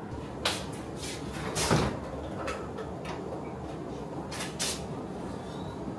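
Short knocks and clicks of household handling, the loudest about a second and a half in, with two quick clicks near the end, as a refrigerator door is opened and handled.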